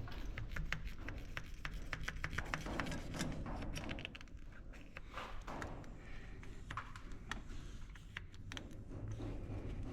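Many light, irregular clicks and taps of small hard objects being handled, over a faint low hum.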